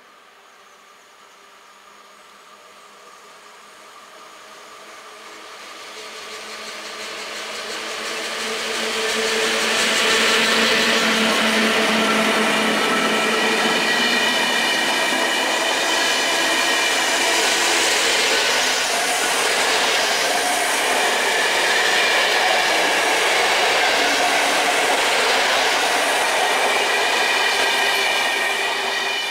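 Passenger train hauled by an EP07 electric locomotive approaching and passing through: a rumble that grows louder over about ten seconds, then a loud, steady rush of the coaches' wheels on the rails with several steady ringing tones as the coaches go by.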